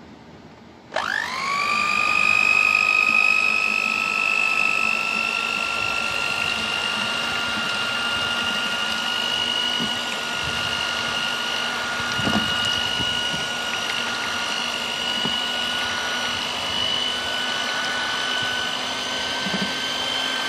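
Electric hand mixer (Moulinex) switched on about a second in, its motor whine rising quickly to speed, then running steadily as its wire beaters whisk a runny mango, cream and condensed-milk mixture in a plastic tub.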